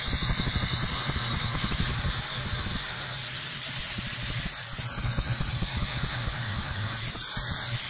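Angle grinder grinding 1.5-inch steel square tubing, a steady grinding noise.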